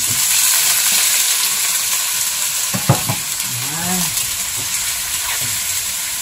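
Chopped chicken poured into hot oil in a wok, sizzling loudly from the moment it lands and holding steady while it is stirred. A sharp knock about three seconds in.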